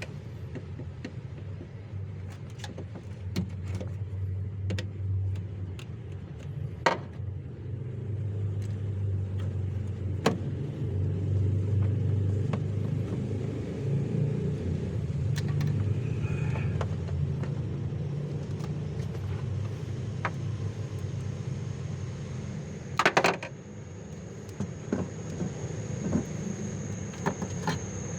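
Steady low vehicle rumble with scattered sharp metallic clicks and knocks of hand tools, a cluster of louder knocks near the end. A thin, high steady whine comes in about two-thirds of the way through.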